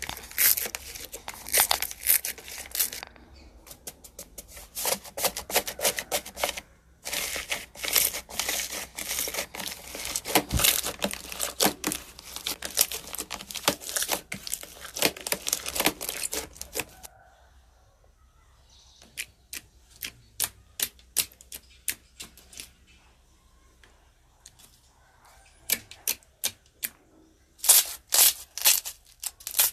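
Slime being squished and poked, giving dense wet crackles and popping snaps. The crackling is thick for the first half, then thins to scattered pops before picking up again near the end.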